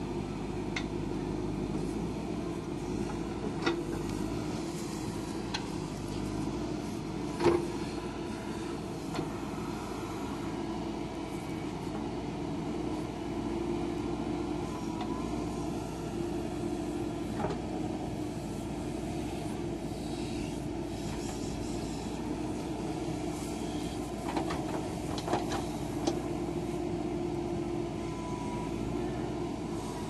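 JCB backhoe loader's diesel engine running steadily as the backhoe arm digs and swings loads of soil, with a few sharp metallic knocks, the loudest about a quarter of the way in.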